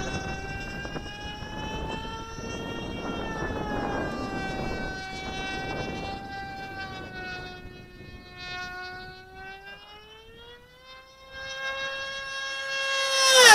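RC model plane's RB 3.5 cc two-stroke glow engine with an aluminium tuned pipe, screaming at high revs in flight, its pitch drifting up and down as the plane manoeuvres. It fades for a moment, then swells into a close pass near the end with a sudden drop in pitch as it goes by.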